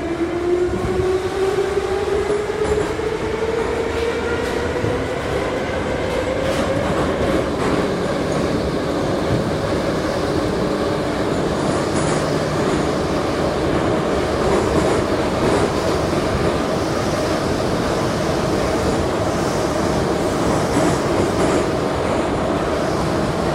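81-717/714 metro train accelerating away from a station, heard inside the car: the traction motor whine rises in pitch over the first several seconds, then levels off into a steady run over continuous wheel and track rumble.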